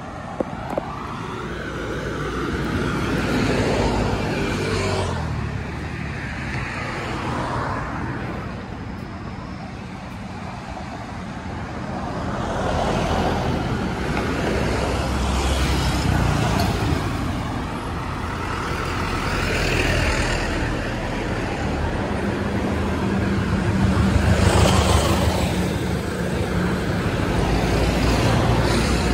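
Road traffic going by, one vehicle after another, each passing swelling and fading over a steady low engine rumble.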